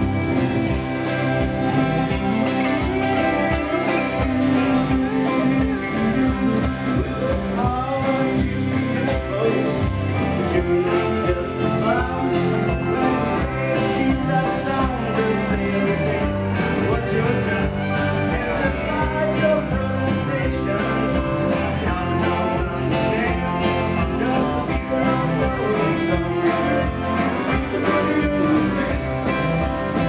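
Live country band playing an instrumental break on electric guitars, pedal steel guitar and fiddle, with a steady beat.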